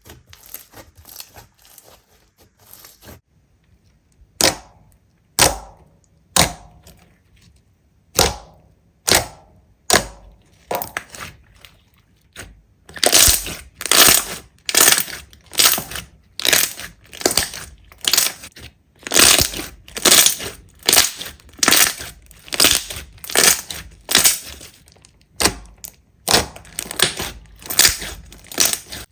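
Slime being pressed and squeezed by hand, giving repeated crackling, popping squishes. They come about once a second at first, then faster and louder from about halfway.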